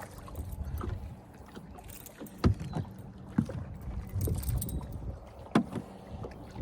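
Three sharp knocks, about two and a half, three and a half and five and a half seconds in, over a low, uneven rumble of wind on the microphone.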